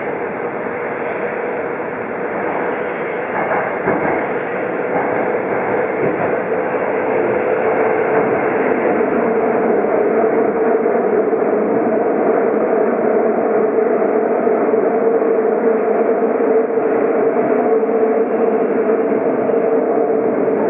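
Tokyo Metro 02 series subway train running through a tunnel, heard from inside the car. A steady rumble of wheels on rails carries a steady whine, and it grows a little louder over the first several seconds, then holds.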